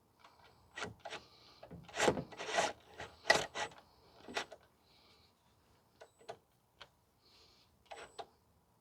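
Hand tools and metal parts being handled under a car: irregular clicks, knocks and scraping, busiest in the first half, with a few sharp clicks near the end.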